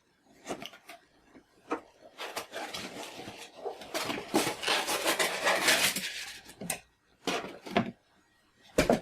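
Glass mug being handled: scattered clinks and knocks, with a longer stretch of scraping and rustling in the middle.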